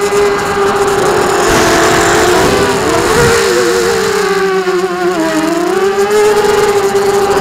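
FPV quadcopter's brushless motors and propellers whining, heard through the onboard camera's microphone, the pitch wavering up and down with the throttle and dipping about five seconds in. A rushing noise joins the whine for a few seconds from about a second and a half in.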